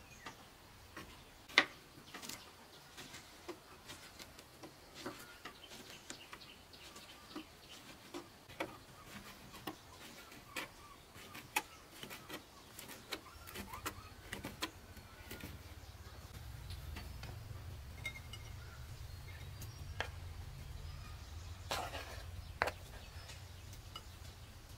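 Knife slicing sausage on a plastic cutting board: irregular sharp taps and clicks as the blade meets the board. A low steady rumble comes in about halfway through.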